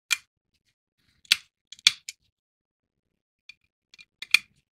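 Sharp clicks and taps of small screws and plastic model-kit parts being handled, in irregular clusters: a loud click near the start, a group around one to two seconds in, and another group near the end.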